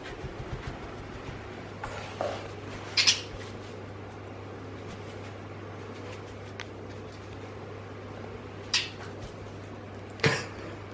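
Pet budgie playing with a small bell toy: a few short, high jingles and clicks several seconds apart, the clearest about three seconds in and two more near the end, over a steady low hum.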